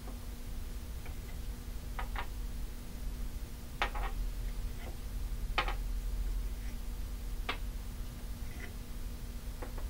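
Wooden beads knocking lightly as they are slid off the dowels of a wooden counting stacker and set down on a wooden tabletop: a handful of short, separate clicks, some in quick pairs, a second or two apart.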